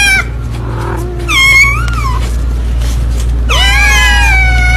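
Kitten meowing: a short, wavering meow about a second and a half in, then a long, drawn-out meow starting near the end.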